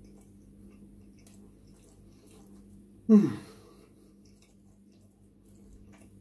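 Faint mouth noises of someone chewing a mouthful of food, with one short, loud vocal sound about three seconds in that drops quickly in pitch.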